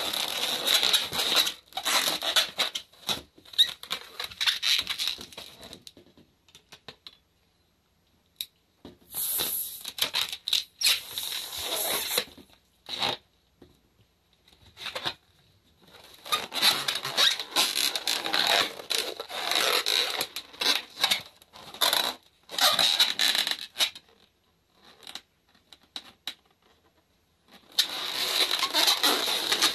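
Latex 260 modelling balloons being twisted and wrapped by hand, latex rubbing and squeaking against latex in long stretches of dense scratchy noise, with a couple of short pauses in the handling.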